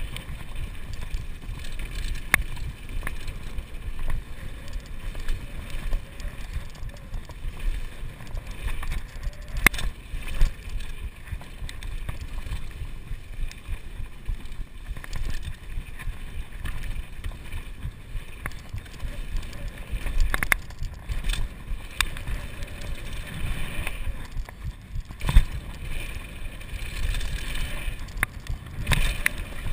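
Kona Supreme Operator downhill mountain bike riding fast over hard-packed dirt: a steady rumble of the tyres and wind on the microphone, broken by sharp knocks and clatters of the bike several times as it hits bumps and lands.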